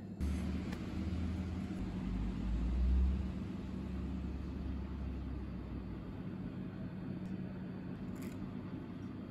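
Low rumble over a steady hum. The rumble comes in suddenly just after the start, is loudest about three seconds in, and dies away by about six seconds; the hum carries on.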